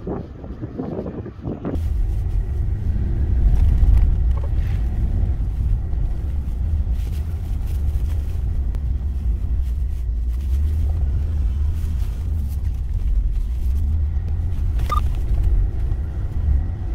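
Wind on the microphone for about two seconds, then a sudden change to the steady low rumble of a Hyundai Veracruz SUV driving up a narrow hill road, heard from inside the cabin.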